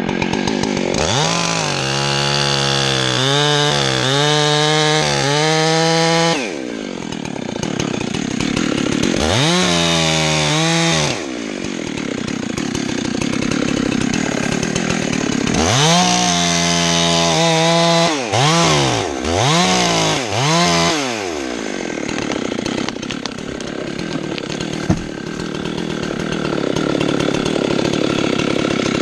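A small engine running, its throttle opened and released again and again: it revs up and holds high for several seconds near the start, again around ten seconds in, then gives a longer rev followed by three quick revs between about 16 and 21 seconds, dropping back to a lower steady run in between. A single sharp click comes about 25 seconds in.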